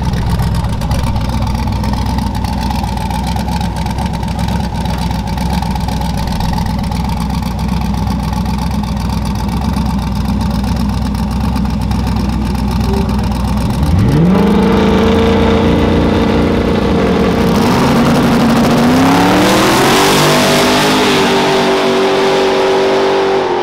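Pontiac Trans Am WS6 drag car's V8 and the car in the other lane running at a steady low rumble in the lanes, then launching about two-thirds of the way in. The engine note sweeps sharply up, then climbs in steps as the car shifts gears on a quarter-mile pass.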